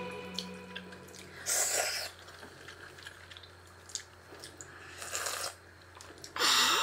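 A person slurping ramen from a bowl: three short slurps of noodles and broth, the last and loudest near the end.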